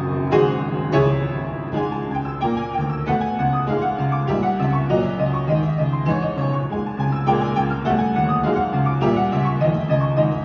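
Young Chang upright piano played with both hands: a continuous run of notes over steady repeating low notes in the bass.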